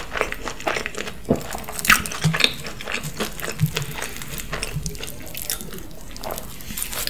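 Close-miked crackling and sticky, wet clicks as a slice of cheese-laden pizza topped with potato pieces and ham is pulled off by hand. A quick run of small crackles, loudest about two seconds in.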